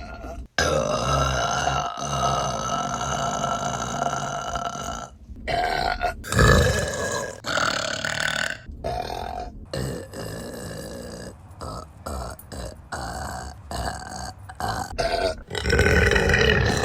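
Women belching: one long, drawn-out burp of about four seconds, then a string of shorter burps one after another.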